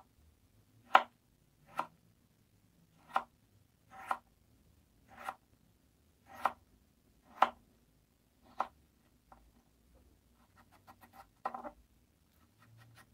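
Kitchen knife slicing a tomato, the blade knocking on a plastic cutting board with slow, separate cuts about once a second. Near the end come quicker, lighter taps.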